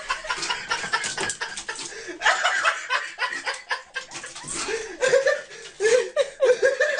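People laughing in choppy bursts, with short pitched rising-and-falling vocal sounds in the second half.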